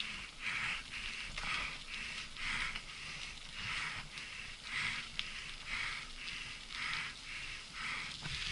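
Mountain bike being ridden on a trail: a rhythmic rasping noise in pulses about twice a second, over a low rumble of the bike rolling.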